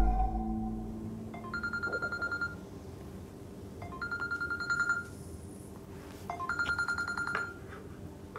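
Mobile phone ringing with an incoming call: three rapid trilling rings, each about a second long and about two and a half seconds apart. Music fades out during the first second.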